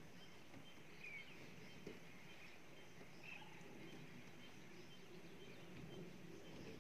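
Near silence: quiet forest ambience with a couple of faint, short bird chirps.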